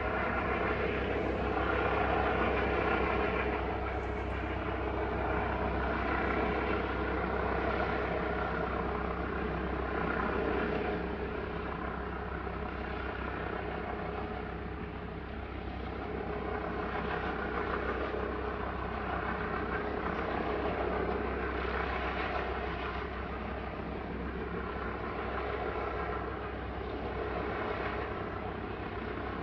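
A helicopter flying over, its rotor and engine a steady drone that swells and fades a little in loudness.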